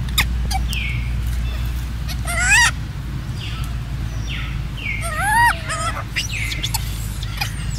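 High animal calls: short falling chirps repeated every second or so, and two louder wavering squeals about two and a half and five seconds in, over a steady low rumble.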